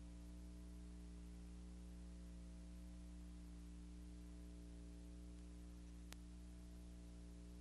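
Near silence: a steady low electrical hum with faint hiss, and a single click about six seconds in.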